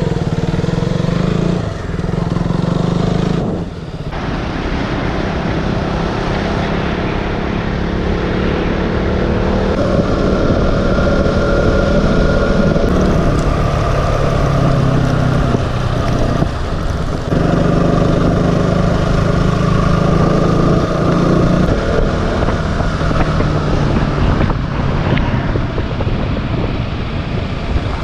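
Motorcycle engine running under way, its pitch stepping up and down several times with throttle and gear changes.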